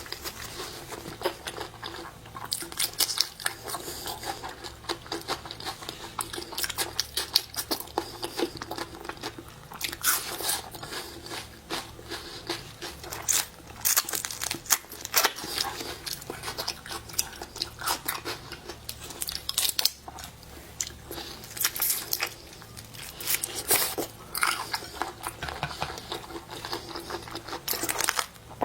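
Close-miked eating of seafood: biting, crunching and chewing, with sharp crunches coming in irregular clusters.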